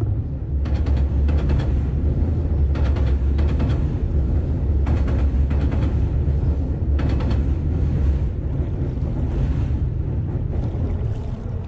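NJ Transit double-decker commuter train crossing a steel railroad drawbridge: a heavy, steady rumble with a burst of clatter about every two seconds. The rumble fades away near the end as the last cars clear the bridge.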